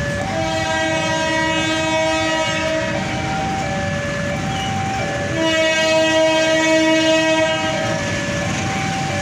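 A diesel locomotive's horn sounds two long blasts of about two and a half seconds each, the second louder, as a train approaches. Under it a level-crossing warning alarm keeps alternating between two tones about every half second, with a low rumble beneath.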